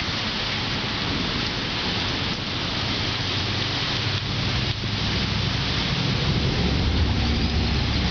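Steady heavy rain hissing, with a low rumble of thunder building from about halfway through.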